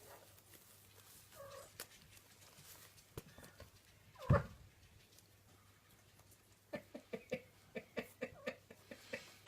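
Three-week-old Siberian kittens making small mewing calls, ending in a quick run of short squeaks, about three a second, over the last few seconds. A single louder short sound comes about four seconds in.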